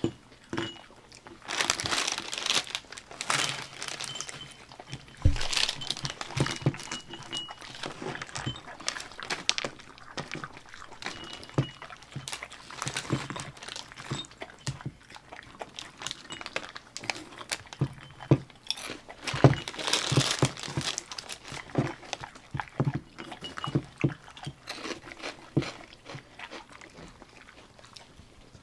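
Dogs and a woman crunching and chewing Gorebap, a dry puffed whale-shaped cracker snack, in irregular crisp crunches and clicks, thicker in a few spells.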